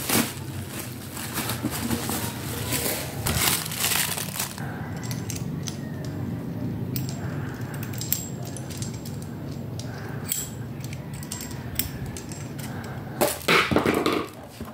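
Crinkling and rustling of plastic packaging and a bubble mailer as a microphone boom arm is unpacked, with scattered small clicks and taps as the table clamp is handled. A loud burst of plastic bag crinkling comes about a second before the end.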